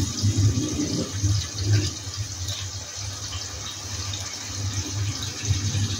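Tomato and onion base simmering in a lidded pan on a gas stove: a steady bubbling sizzle.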